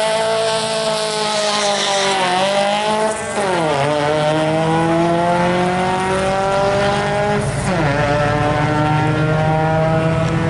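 A hatchback car and a motorcycle launching off a drag-strip start line and accelerating hard. The engine pitch climbs through the gears and drops back at shifts about two, four and eight seconds in.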